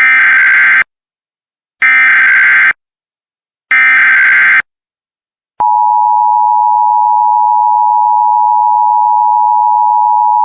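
Emergency Alert System SAME header: three short bursts of warbling data tones, about two seconds apart, that encode the alert. About five and a half seconds in, the steady EAS attention tone starts and holds.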